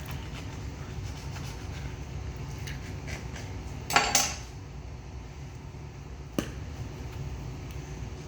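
A small metal tin being worked open by hand: a few faint taps, then two loud clinks close together about four seconds in and a single sharp click a couple of seconds later, over a steady low hum.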